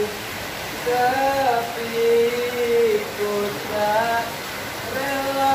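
A man singing a slow melody without accompaniment: long held notes that waver and glide, with short breaks between phrases.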